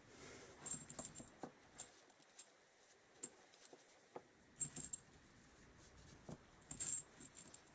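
Small metal spare parts clinking against each other as they are picked through and sorted by hand: scattered light clinks with a short metallic ring, bunched in clusters about a second in, around the middle and near the end.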